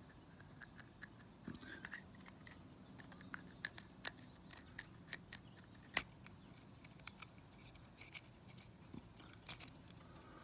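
Faint handling noise: scattered small clicks and ticks as a sawn-open metal oil pressure sender is turned over in the hands, with one sharper click about six seconds in.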